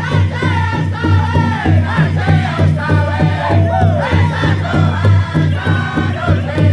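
A powwow drum group singing together in high voices whose melody slides downward, while the singers strike one big shared drum in a fast, steady beat for a Fancy dance song.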